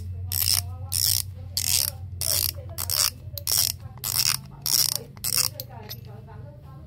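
Front drag knob of a Shimano Spheros SW 6000PG spinning reel being unscrewed by hand. Its drag clicker ratchets in short bursts of rapid clicks, about two bursts a second, and stops shortly before the end as the spool comes free.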